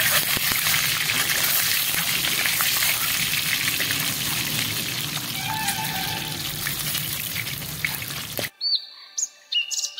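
Boiled eggs sizzling and crackling in hot oil in a wok over a wood fire. About eight and a half seconds in, the sizzle cuts off suddenly and a music jingle with chirping bird-like sounds begins.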